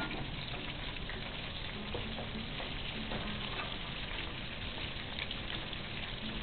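Chicken pakoda pieces deep-frying in a pan of hot oil, a steady sizzle.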